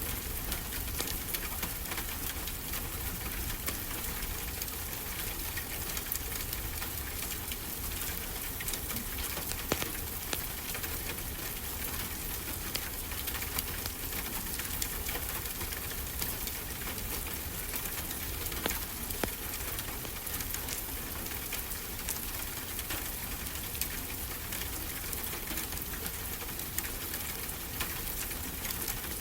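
Wood fire crackling, with frequent small sharp pops, over a steady low rush of ocean waves.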